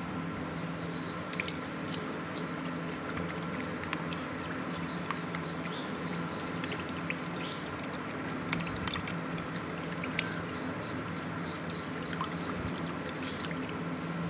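Water trickling and splashing in a plastic tub as a rust-removal soak is mixed, with scattered light clicks over a steady low hum.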